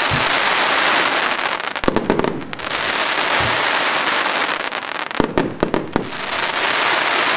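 Firework fan cake of 100 shots firing: clusters of sharp launch shots about two seconds in and again about five seconds in, each followed by a long spell of dense crackling as the gold stars burst.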